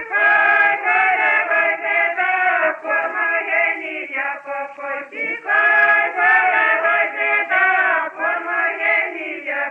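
Voices singing a chant-like folk song in long held notes.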